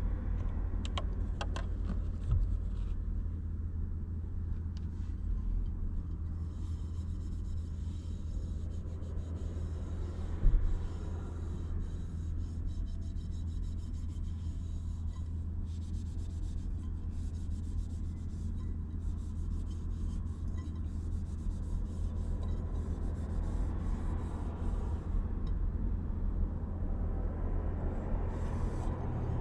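Rapid, scratchy rubbing strokes repeated in long runs, over a steady low hum, with one short knock about ten seconds in.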